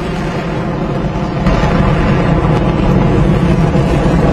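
Long March 2F rocket engines' steady roar during ascent, growing louder about a second and a half in.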